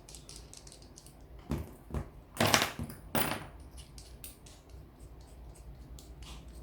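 Small clicks and knocks of fishing reel handle parts being handled while the knob's covers are fitted, with a few louder clatters about one and a half to three seconds in.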